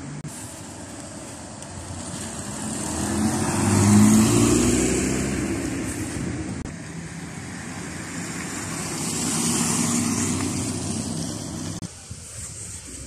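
Two cars pass one after the other on a wet road, each rising and fading with engine note and the hiss of tyres on wet asphalt: the first, the louder, goes by about four seconds in, the second about ten seconds in.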